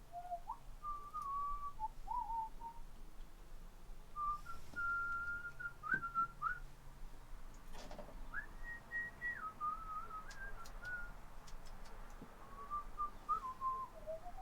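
A person whistling a wandering tune to himself, in held notes with small steps up and down. A few light clicks and knocks come in near the middle.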